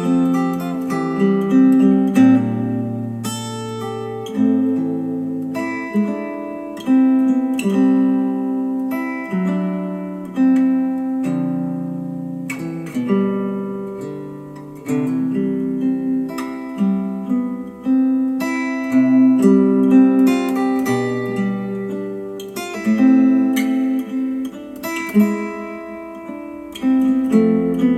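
Instrumental acoustic guitar music, plucked and strummed notes ringing and dying away, played back through ELAC Debut Reference DBR-62 bookshelf speakers driven by a Rotel A12 integrated amplifier.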